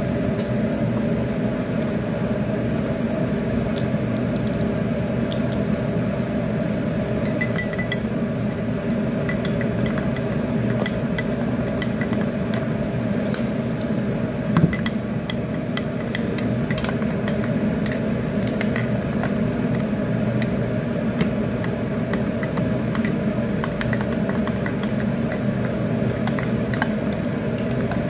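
A metal spoon stirring liquid in a drinking glass, clinking against the glass again and again, over a steady low hum. One louder knock comes about halfway through.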